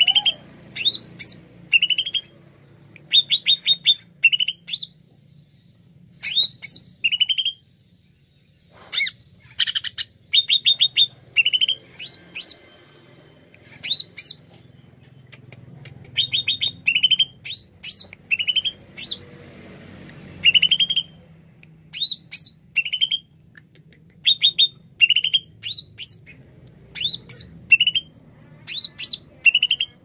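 Caged cucak ijo (green leafbird) singing in full song: short, rapid bursts of sharp chirps and rising whistles, repeated every second or so with a few brief pauses.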